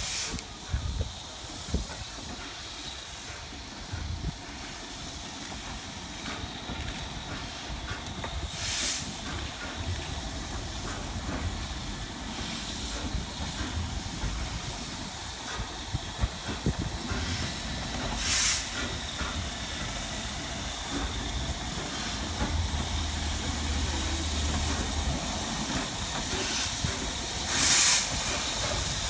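Steam locomotive standing and hissing steadily, with three short louder blasts of escaping steam about ten seconds apart.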